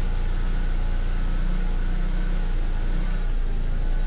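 BMW E46 four-cylinder engine idling roughly just after a cold start, its rpm dipping, with the exhaust a little noisy from a removed resonator. The owner suspects a failing ignition coil.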